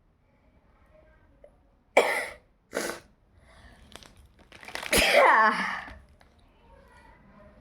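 A person sneezing: two short, sharp sneezes about two and three seconds in, then a louder, longer sneeze with a falling voiced cry about five seconds in.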